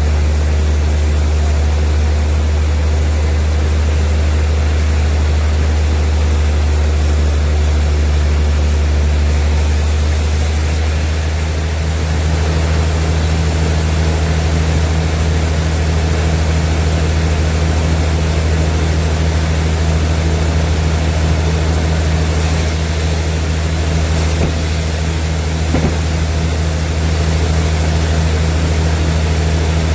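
Large sawmill machinery running with a loud, steady, low engine-like drone; its tone shifts slightly about twelve seconds in.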